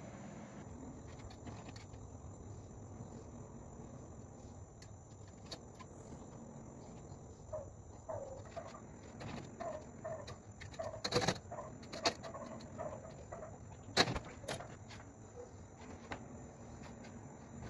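Steady high-pitched insect chirring, with a run of short squeaks in the middle and a few sharp knocks, the loudest about eleven and fourteen seconds in.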